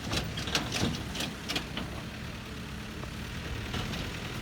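An engine running steadily at low speed, with a quick run of clicks and knocks in the first two seconds.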